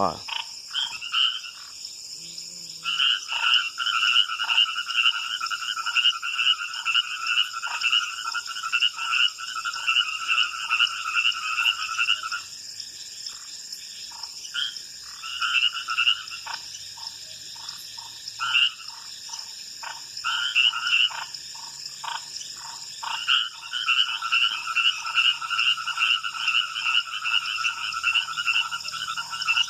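Night chorus of frogs: long trains of rapid, repeated croaking notes that stop for a while and start again, over a steady high-pitched insect trill.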